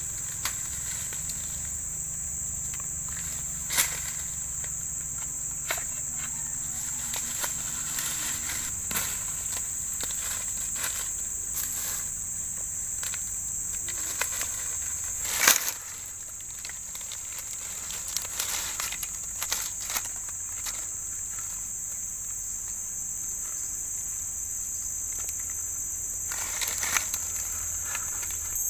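A steady, high-pitched chorus of insects singing, with scattered sharp clicks and knocks; the loudest knock comes about halfway through.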